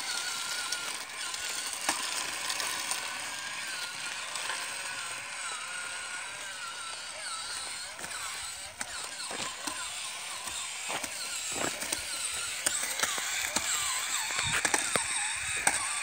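Terra Climber remote-control toy's small electric drive motors and gears whining, the pitch wavering up and down as it drives. From about halfway through, its wheels knock and clatter against rocks as it tries to climb.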